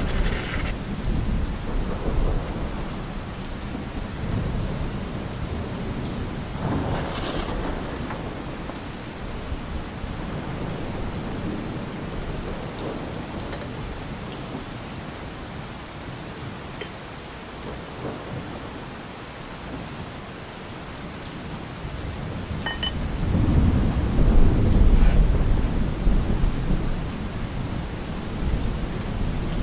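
Steady rain falling, with a low roll of thunder that swells up about three-quarters of the way through and fades again.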